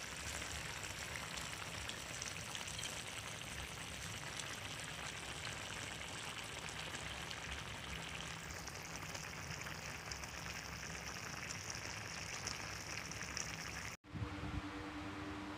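Apple-snail curry sizzling and bubbling in a wok, a steady crackle of many fine ticks as the sauce is cooked down almost dry. Near the end it cuts off suddenly and a steady hum takes over.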